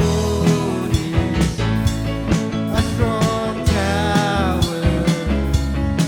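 Recorded song with a singing voice over a band and a steady drum beat.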